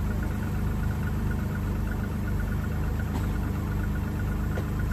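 Car engine idling steadily, with a couple of faint clicks.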